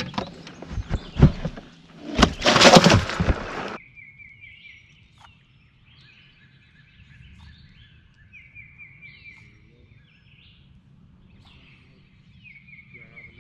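Loud handling noise: a sharp knock about a second in, then a loud noisy rush that cuts off suddenly near four seconds. After that a songbird sings a fast trill of repeated falling notes three times over a faint low hum.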